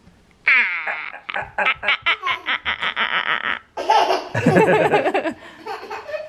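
Toddler laughing: a high, falling squeal about half a second in, then a quick run of giggles, and another burst of laughter around four seconds in.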